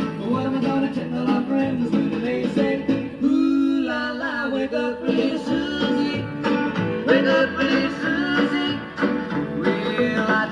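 A pop record with guitar and singing, played on a 1962 Dansette Conquest portable record player.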